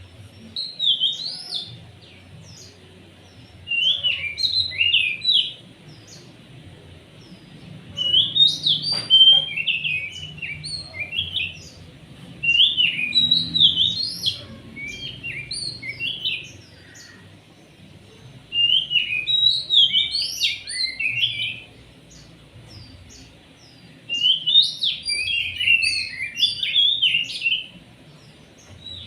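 Oriental magpie-robin (kacer) singing in repeated loud bouts of fast, varied whistled phrases, about six bursts of song with short pauses between them. This kind of energetic, non-stop song is used as a lure to set other magpie-robins singing. A single sharp click about nine seconds in.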